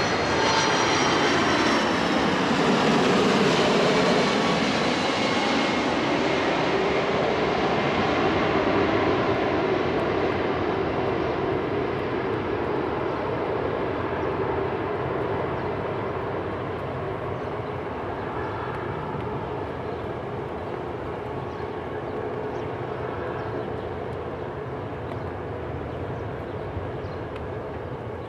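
A four-engine Boeing 747 jetliner passes low overhead on approach with its landing gear down. The whine of its jet engines drops in pitch as it goes by, loudest in the first few seconds, then the engine rumble slowly fades away.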